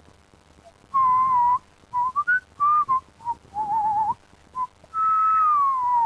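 A person whistling a short tune of separate notes, with a quick warbling trill in the middle and one long note that slides steadily downward near the end.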